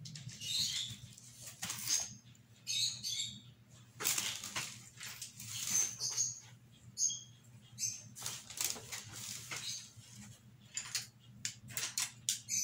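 Rustling and light knocks of someone rummaging for paintbrushes, in short scattered bursts, with a few brief high chirps or squeaks in the middle and near the end.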